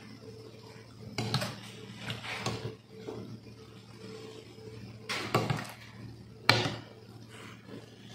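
Metal spoon scraping and clinking against ceramic plates while serving stew and broth onto rice, in a few short bursts, with one sharp clink late on.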